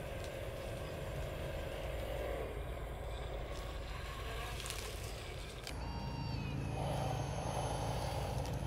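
1/14-scale RC hydraulic wheel loader running as it crawls over rough dirt: a steady motor hum whose pitch drops about two seconds in, then a louder, rougher sound a little past halfway.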